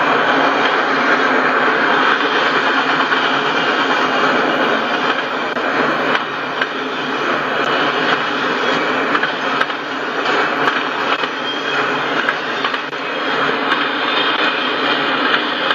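Autorack freight cars rolling past, a steady clatter of steel wheels on the rails with a few sharp clicks.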